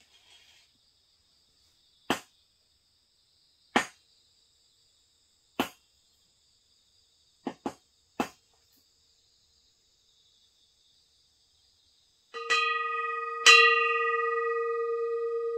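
Six sharp clacks at uneven intervals, the last three close together, then a metal singing bowl struck twice about a second apart, ringing on with a slow wavering hum. Faint crickets chirp throughout.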